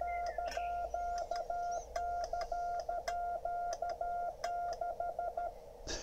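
Morse code sidetone from a Yaesu FTdx10 transceiver: one steady beep keyed into dits and dahs through the rig's built-in keyer by a home-made iambic paddle key, in somewhat halting, rusty sending. Faint clicks run along with it, and the tone stops about half a second before the end.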